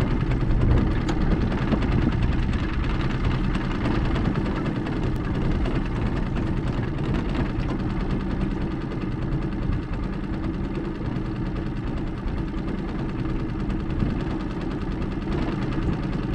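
Small tiller-steered outboard motor running steadily at low, even throttle, pushing the boat along at trolling speed.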